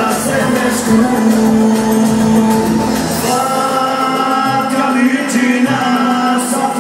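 Live Albanian folk-pop band music with a singer, amplified through loudspeakers in a large hall. The melody moves in held notes, and the deep bass drops out about three seconds in.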